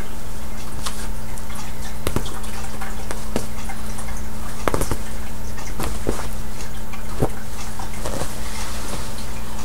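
Steady low hum, with scattered soft clicks and rustles of cloth as pajamas are handled and put on a reborn baby doll.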